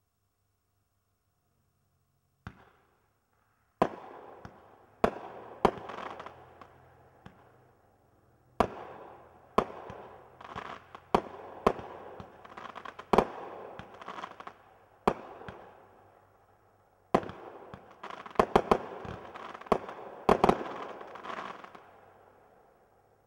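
Crackling 20-shot fireworks cake firing: sharp bangs at uneven intervals, some in quick clusters, each followed by a spell of dense crackle that fades. It starts a couple of seconds in and dies away near the end.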